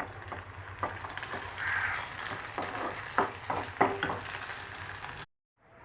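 Small shallots frying in hot oil in a pan as the tempering for a clam curry: a steady sizzle that swells now and then, with several sharp pops or clicks. It cuts off suddenly near the end.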